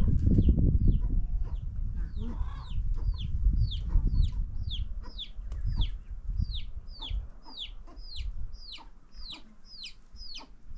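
A chick peeping: a short, high, falling peep repeated about twice a second, getting louder toward the end. Underneath, a low rumbling noise, strongest in the first half.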